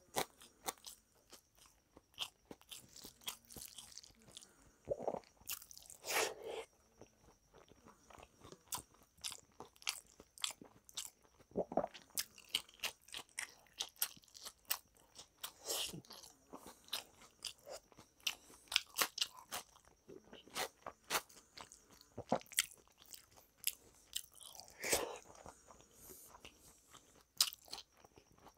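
A person chewing and crunching a mouthful of rice, dal and fried vegetables, eaten by hand, with many small sharp mouth clicks and a few louder bites.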